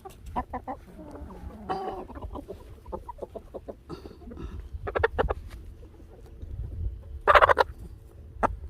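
Chickens clucking in short, scattered calls, with one loud squawk about seven seconds in.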